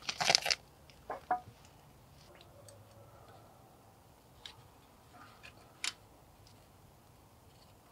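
Gloved hands handling small metal parts at a snowblower carburetor: a quick cluster of clicks and rustling in the first half second, two more clicks just after a second in, then a few faint ticks.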